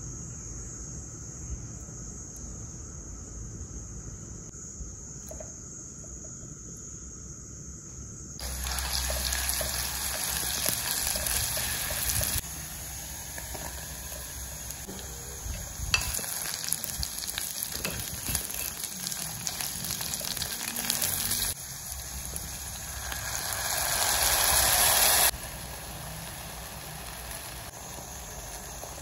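Minced shallots and sliced dried shiitake mushrooms sizzling as they fry in oil in a clay pot, heard in several separate stretches after a quieter start of about eight seconds. Near the end the sizzling swells louder for a few seconds, then cuts off suddenly.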